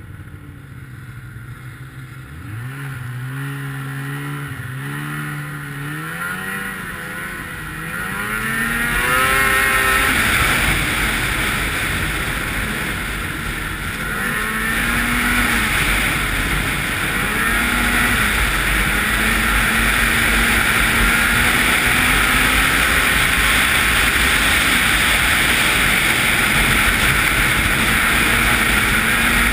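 Ski-Doo 800 two-stroke snowmobile engine climbing in pitch in several short surges over the first ten seconds, then running fast and steady under a loud rush of wind and track noise.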